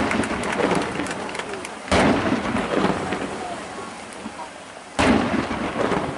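Aerial firework shells bursting: three heavy booms, right at the start, about two seconds in and about five seconds in, each rolling away in a long echo.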